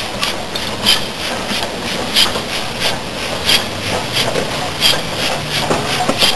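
Fairburn 2-6-4 tank steam locomotive moving slowly, its exhaust beats coming as evenly spaced chuffs about every second and a quarter, five of them, over a steady low rumble.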